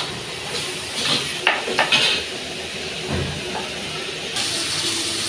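Food sizzling in a hot wok, a steady hiss, with a few quick metal scrapes and knocks of a spatula in the first half.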